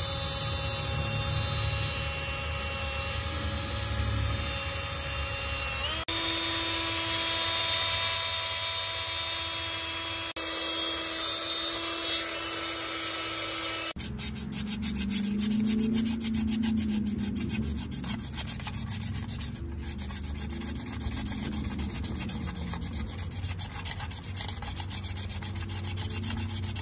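Dry rubbing and scraping of hands and tools against the metal brake parts of a truck's wheel end. The first half also carries several steady background tones; after a sudden change about halfway, a fast, even patter of faint clicks runs under the handling noise.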